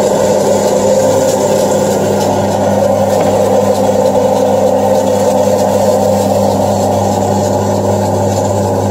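GDM-06 electric food slicing machine running with a steady hum while chicken breast is fed through its cutting rollers.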